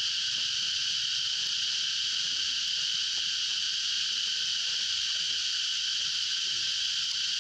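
Dense, steady insect chorus: an unbroken high-pitched hiss that holds level throughout.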